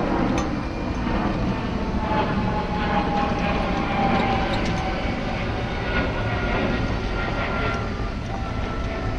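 Golf cart driving: steady motor and wheel noise with a faint whine that drifts slightly in pitch.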